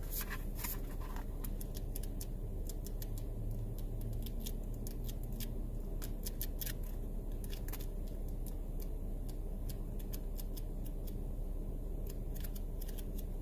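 Pages of a paperback cookbook being flipped one after another, a quick irregular run of light ticks and flicks over a steady low hum.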